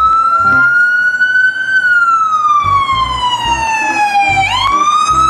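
Ambulance siren on a slow wail. The tone rises, falls slowly for a couple of seconds, then sweeps quickly back up about four and a half seconds in.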